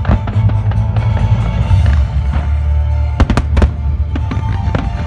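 Fireworks bursting and crackling over loud music with a heavy bass. A quick cluster of sharp bangs comes about three seconds in.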